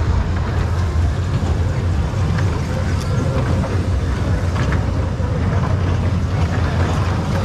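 A steady low rumble that does not change, with faint voices in the background.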